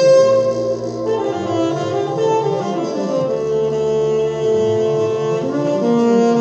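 Orchestra playing slow, long held notes, with an electric bassoon's reedy tone over bowed strings; the chord shifts every second or two.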